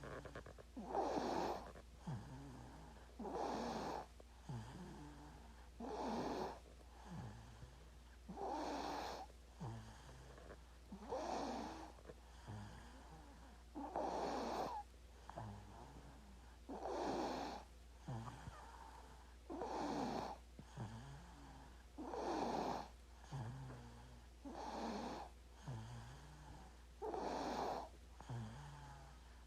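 Baby snoring in sleep, one snoring breath about every two and a half seconds in a steady rhythm, with softer low snuffles between them.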